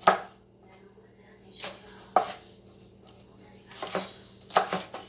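Cleaver chopping green onions on a wooden chopping board: a few single sharp knocks of the blade hitting the board about two seconds apart, with softer cuts between them.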